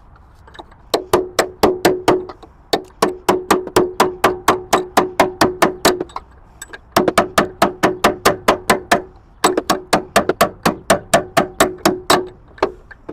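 Hand hammer striking steel in rapid blows, about four to five a second, each hit ringing with a clear metallic tone, as a pin is driven out of a forklift's hydraulic cylinder mount. The blows come in four runs with short pauses between them.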